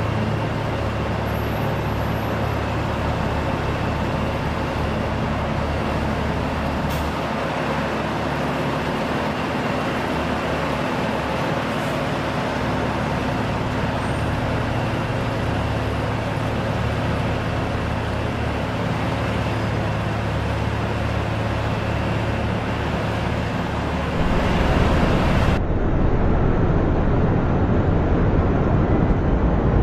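Roadtec RX500 cold planer milling asphalt: its diesel engine and cutting drum make a steady, dense mechanical din over a low hum. About 24 seconds in, the sound turns into a louder, duller rumble.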